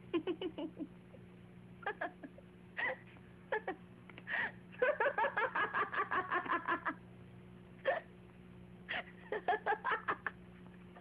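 A person laughing in several bouts of quick, rhythmic ha-ha pulses, the longest in the middle.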